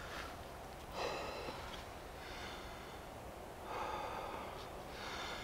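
A man breathing hard in slow, heavy breaths as he saws a bow drill, under the faint dry rasp of the wooden spindle turning in the hearth board.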